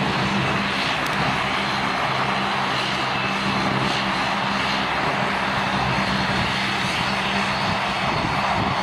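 Jet airliner engines running steadily: a continuous rushing noise with a low hum underneath.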